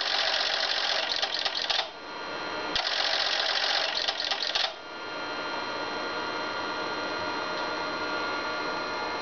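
Relays in a Harris RF-382A antenna coupler clattering rapidly in two bursts of about two seconds each as it steps through its tuning network, then stopping, leaving a steady hiss. The coupler is searching for a match and finding none.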